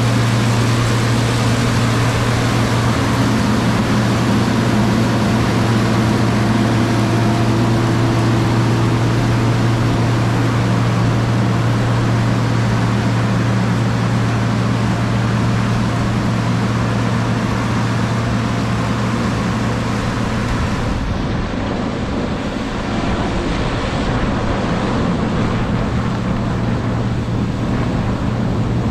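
Case IH 1666 combine running steadily with a strong low hum and a hiss above it. About 21 seconds in the sound turns duller as the hiss falls away and the hum weakens.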